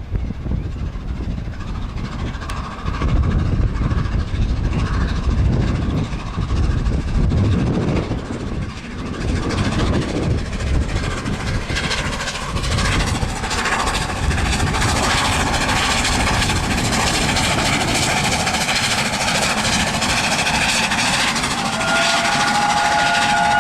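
Steam locomotive 60163 Tornado, a Peppercorn A1 4-6-2, approaching and passing at the head of its train, with the exhaust and wheel noise building. Its whistle sounds near the end.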